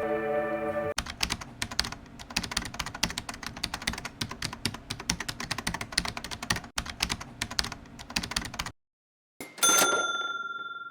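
Rapid keyboard typing, many quick clicks a second for about eight seconds, then a brief pause and a single bright bell-like ding that rings out and fades.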